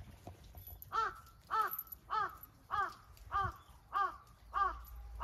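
A crow cawing: a regular string of about seven short, hoarse caws, a little under two a second, starting about a second in.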